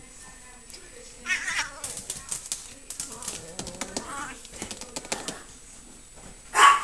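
Siamese cat meowing several times, ending with a short, much louder call near the end.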